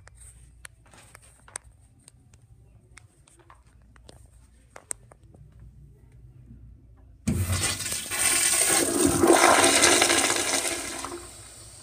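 Crane Whirlton toilet flushed by a wall-mounted flushometer valve: after a few faint clicks, a loud rush of water starts suddenly about seven seconds in, swells for a few seconds, then dies away.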